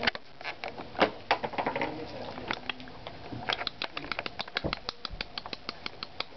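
Raccoons eating dry cat kibble: a run of sharp, irregular crunching clicks, a few a second, coming faster in the second half, with one soft low bump near the middle.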